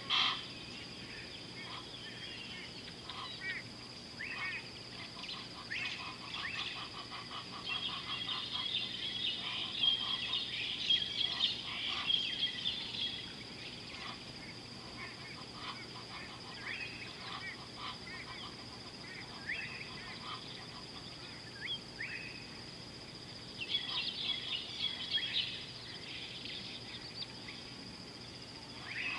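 Wild birds calling and chirping in the bush, with short high notes and rapid twittering that grows dense twice, first for a few seconds about a third of the way in and again near the end. A steady high whine runs underneath.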